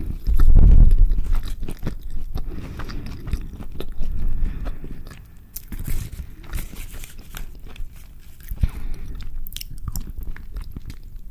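Close-miked chewing and biting of a carne asada burrito: wet mouth sounds and soft crunches, loudest in the first second or so. Crinkling of the burrito's paper wrapper as it is handled.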